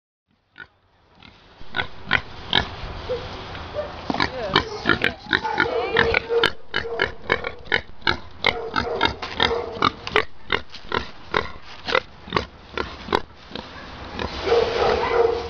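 A young pig grunting in a quick series of short grunts, about two to three a second, which stop shortly before the end.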